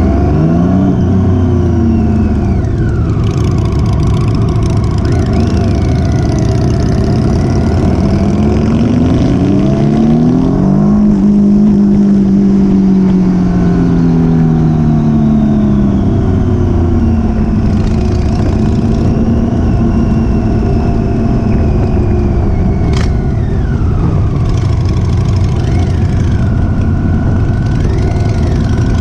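Motorcycle engine running on the move, heard from an onboard camera, its pitch rising and falling several times as the throttle opens and closes, over a steady rushing noise.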